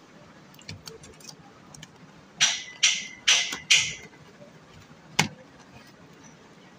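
Cardboard matchboxes being handled and pressed together on a wooden table. About two and a half seconds in come four short scraping sounds, roughly half a second apart, and a single sharp tap follows a little later.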